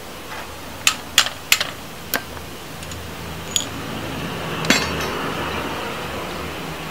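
Metal tools and parts clinking against each other and the tile floor as a mechanic handles a motorcycle rear shock absorber and its bolts: four quick clinks in the first two seconds, a ringing one about halfway through and a louder ringing clank near the end.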